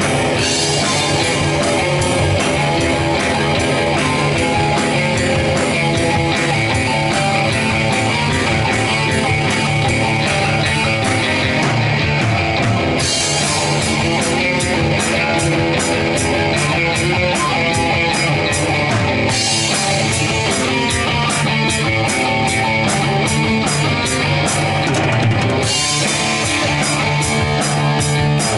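A live rock band jamming, with guitar over a drum kit. About halfway through, a steady cymbal beat comes in on top.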